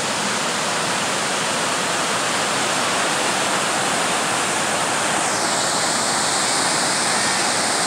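Floodwater of the Little River, swollen by days of heavy rain, pouring over The Sinks waterfall and through its rocky chute: a steady, loud rushing of white water, whose higher hiss shifts slightly about five seconds in.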